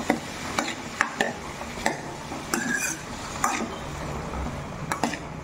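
A metal spoon scraping and knocking against a steel kadhai as chopped carrots and peas are stirred while frying in oil: irregular strokes, roughly two a second.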